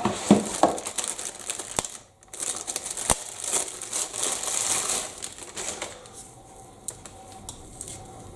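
Handling noise of a microphone cable being unpacked and flexed: crinkling and rustling with a few sharp clicks in the first three seconds, then a stretch of rustling that dies down to a few small ticks in the second half.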